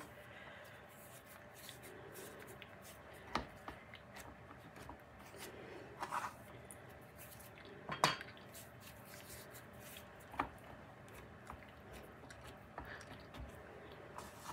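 Quiet handling of cookie dough being pressed into the cups of a cake-maker mould: scattered light knocks and clinks, a few seconds apart. The sharpest comes about eight seconds in.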